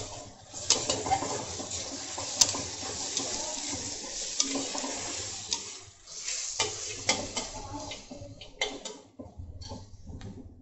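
Chopped onions sizzling in hot oil in a brass kadhai on high flame, a steel spatula stirring and scraping them with frequent clicks against the pan. The sizzle dips briefly about halfway through, then the scraping and clicking picks up again.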